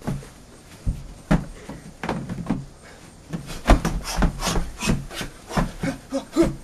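Scuffs, rubbing and knocks of a person crawling and moving about on a wooden porch floor: irregular sharp knocks, more frequent from about three and a half seconds in.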